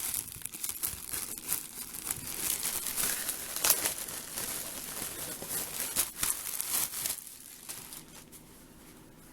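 Crinkling and rustling as a folded T-shirt and its packaging are handled and unfolded, dying away about seven seconds in.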